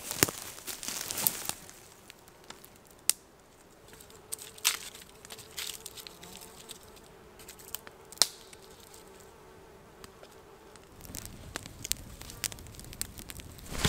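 An insect buzzing steadily for several seconds, with scattered sharp clicks and knocks around it and rustling growing louder near the end.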